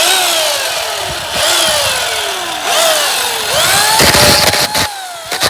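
Chainsaw engine revved in repeated throttle blips, its pitch jumping up and sinking back about four times, then held at high revs near the end.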